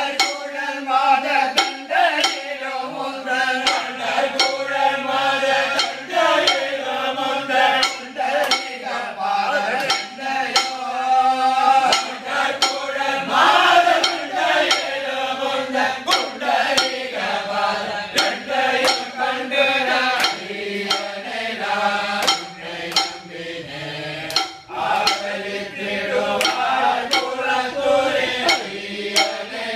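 A group of men chanting a Tamil devotional song to Ayyappa in unison, kept in time by sharp metallic clinks in a steady rhythm.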